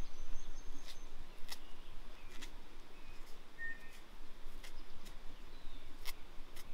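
Quiet woodland background with scattered faint clicks and crackles from hands fluffing a spirit-soaked cotton-wool tinder ball among dry wood shavings, and a few short bird chirps.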